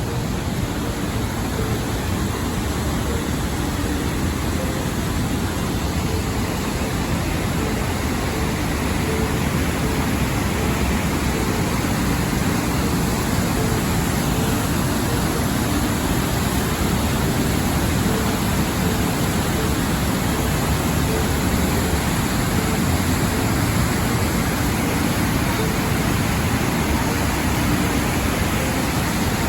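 Steady rush of a large waterfall's falling water, an even, unbroken noise with no distinct strokes.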